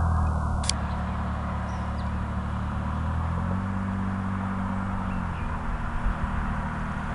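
Road traffic: a motor vehicle's engine drone with a steady low hum whose pitch shifts for a couple of seconds in the middle, over a hiss of tyre and road noise.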